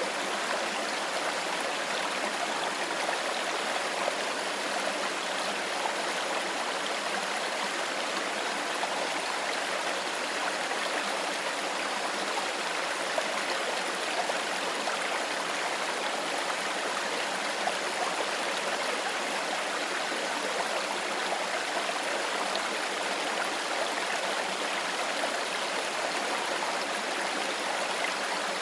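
A small stream of water flowing over rocks: a steady, even rush with fine splashing and gurgling.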